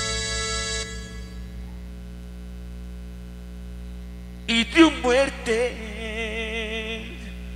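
A live band's final chord ringing out through the PA and fading, leaving a steady mains hum from the sound system. About four and a half seconds in, a man's voice comes over the microphone with short calls and a wavering held note.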